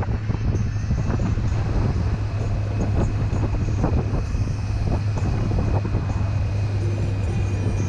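Motorcycle engine running steadily at low road speed, a constant low hum, with wind noise on the microphone.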